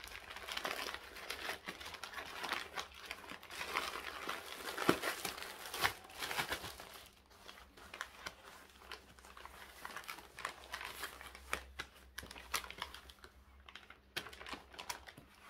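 Plastic courier mailer bag being opened and handled: dense crinkling and crackling of plastic, busiest over the first seven seconds or so, then sparser.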